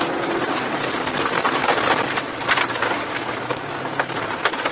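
Rally car's engine running hard at steady speed on a gravel road, heard from inside the cabin, with loose stones and gravel clicking and rattling against the underside of the car. The engine note eases off near the end.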